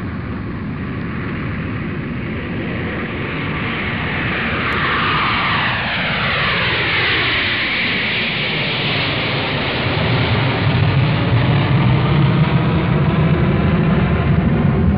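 Jet airliner flying past: engine whine and rushing noise grow louder, the whine slides down in pitch around the middle as the plane passes, and a deep low rumble follows and is loudest near the end.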